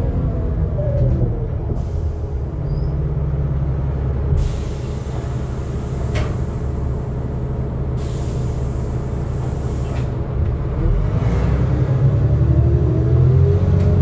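NefAZ 5299 city bus heard from inside the passenger cabin: the engine runs with a heavy low rumble, its pitch falling at first, then holding steady. There are two spells of hissing in the middle. Near the end the engine's pitch rises again as the bus accelerates.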